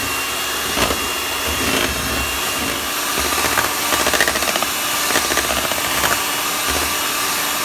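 Electric hand mixer running steadily, its wire beaters whisking melted chocolate and butter into a foamed egg-and-sugar batter in a plastic bowl.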